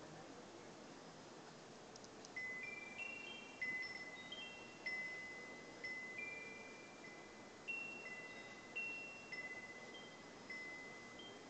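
Wind chimes ringing: clear bell-like notes at several pitches, struck at uneven intervals from about two seconds in, each ringing on and fading as the next sounds.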